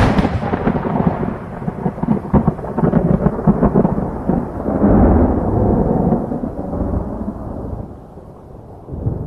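Thunder sound effect: a crackling thunderclap that rolls into a long rumble, swells again about halfway through and dies down near the end.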